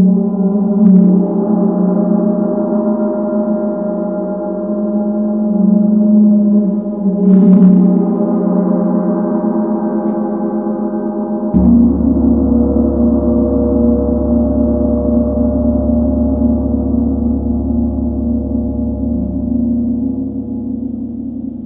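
Large Tibetan gong ringing with a long, shimmering sustain of many overlapping tones, touched with light mallet strikes at the start and again about seven seconds in. About twelve seconds in, a deep low hum comes in suddenly beneath the ringing and holds.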